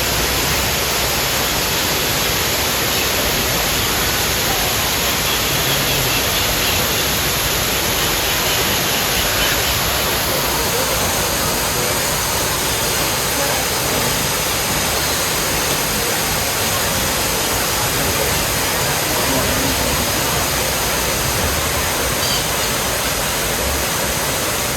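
Steady, loud rushing of water, like a waterfall, unbroken throughout.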